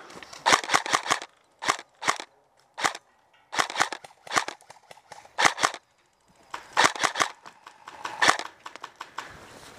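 Airsoft rifle fire close by: about ten short bursts and single shots of sharp clacks, with brief pauses between them.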